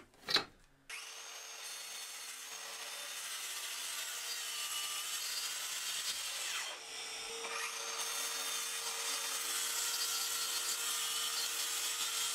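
A couple of short scrapes as a line is marked against a square on OSB, then a Bosch track saw running steadily as it cuts through the OSB sheet, with a brief dip about seven seconds in.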